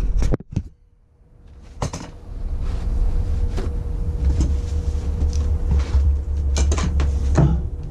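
Knocks, clicks and handling noise in a plywood sink base cabinet as plumbing fittings are handled and wiped with a towel, a cluster of knocks near the end, over a steady low hum that drops out for about a second near the start.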